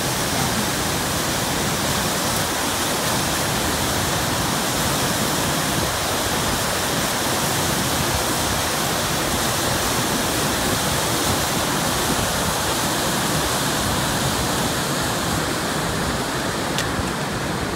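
Mountain meltwater stream cascading over boulders: a steady, loud rush of white water.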